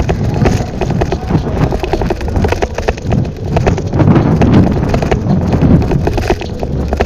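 Riding-along sound of a bicycle: low wind rumble on the microphone with rapid, irregular clicks and knocks, the bike and camera mount rattling over the pavement.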